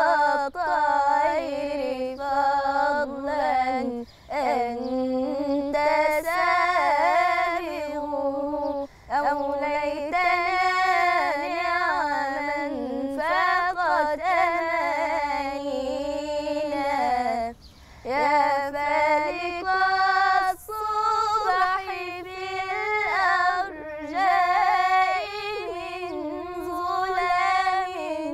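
A young girl singing an Islamic religious chant (inshad) solo and unaccompanied, in long ornamented phrases broken by short pauses for breath.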